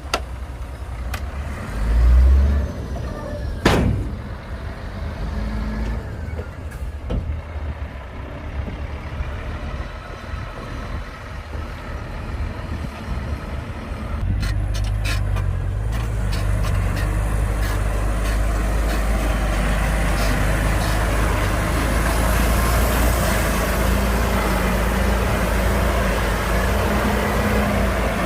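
Heavy diesel earthmoving machines working, with a steady low engine rumble. There is a heavy thump about two seconds in and a sharp click a moment later. About halfway through, an engine grows louder and then holds steady.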